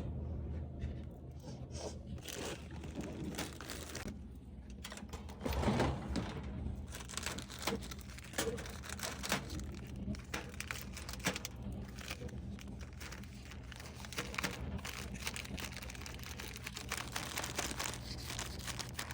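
Plastic packaging crinkling and rustling with scattered irregular clicks as wrapped items are handled, over a steady low hum.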